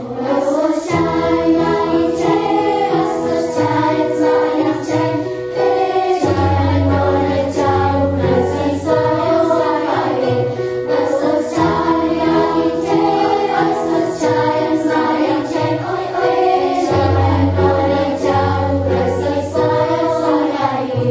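Girls' school choir singing in harmony, with low sustained bass notes underneath.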